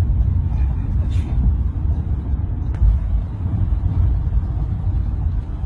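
Steady low rumble of a car's engine and tyres heard from inside the cabin while driving, with a couple of faint ticks.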